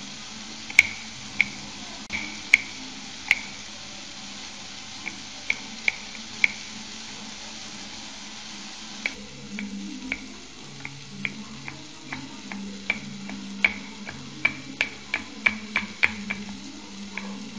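Kitchen utensil clicking and tapping against a dish, in irregular sharp taps that ring briefly. The taps are sparse at first and come quicker, several a second, from about halfway through, over a steady hiss.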